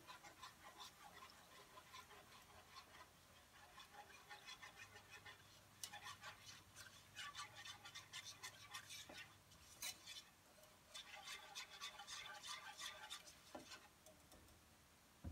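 Wire whisk beating milk into a butter-and-flour roux in a nonstick pan for a white sauce: quick, faint scraping and rattling strokes that come in two busier spells with a short pause between.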